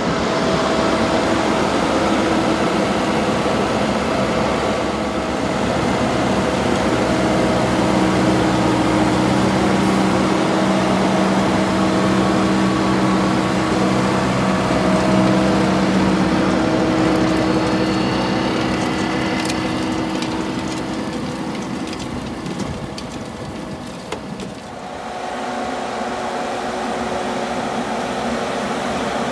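Farm tractor engine running steadily under working load in the field. About three quarters of the way in, it drops briefly and comes back at a different pitch.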